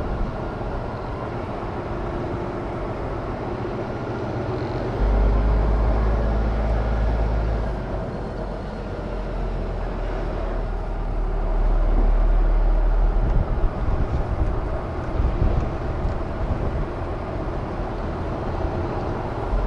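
Articulated lorry's diesel engine running, heard from inside the cab, a steady rumble whose deep low end swells about five seconds in and again from about twelve seconds on.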